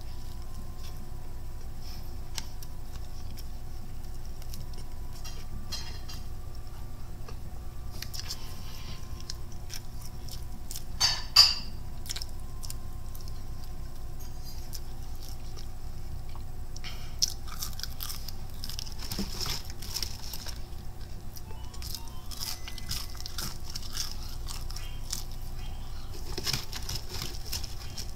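Close-up chewing and crunching of crisp fried chicken and fries, in scattered crisp clicks and short crunches over a steady low hum, with one sharp loud crunch about eleven seconds in and busier crunching in the second half.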